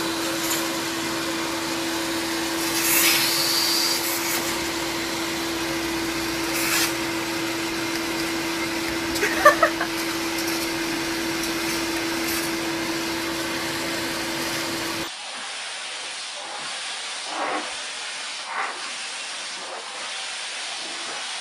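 Vacuum cleaner running steadily, a motor hum over a rushing airflow, with a few brief sounds on top. About fifteen seconds in it cuts off abruptly to a quieter, steady hiss with a few short sounds.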